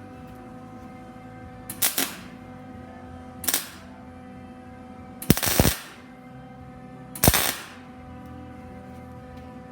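Four short bursts of welding arc crackle, electric welder laying tack welds on the edge of a steel billet, the third tack the longest and loudest, over a steady hum.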